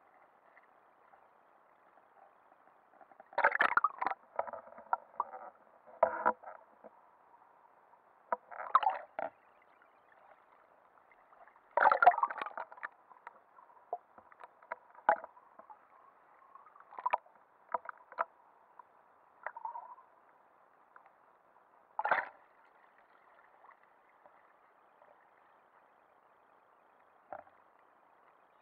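Seawater sloshing and knocking against an action camera's waterproof housing as it is dipped under the surface and lifted out. The sound is muffled and comes in irregular bursts several seconds apart.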